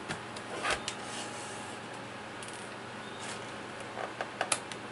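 Handling of a laptop LCD panel as it is worked out of the lid: a short scrape with clicks about half a second in, then a quick run of sharp clicks near the end, over a steady low hum.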